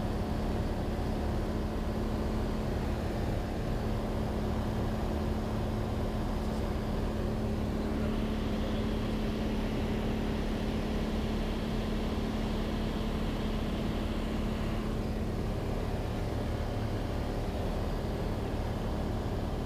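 Cessna 182's engine and propeller running steadily in cruise flight, heard inside the cockpit: a constant drone with a steady low hum over the rush of air.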